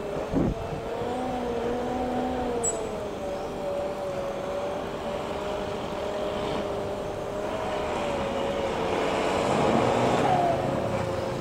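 Jet engines of an Airbus widebody airliner on final approach: a steady wavering whine over a broad rumble, growing a little louder near the end. A brief thump comes about half a second in.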